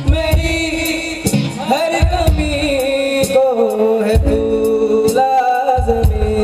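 Live band music: a man singing a melody over acoustic guitar and keyboards, with a steady drum beat underneath.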